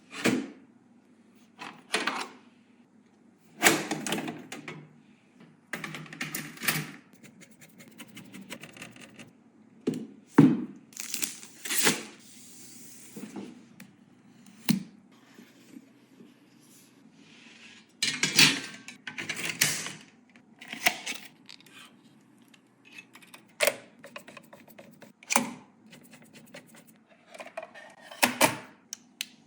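Handling sounds of PC components being assembled: irregular clicks, knocks and short rustles, a second or two apart.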